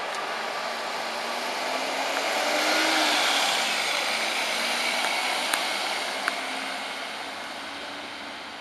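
Mercedes-Benz Sprinter ambulance driving past: engine and tyre noise that swells as it passes close, loudest about three seconds in, then fades as it drives away, with no siren sounding. Two short sharp clicks come in the middle.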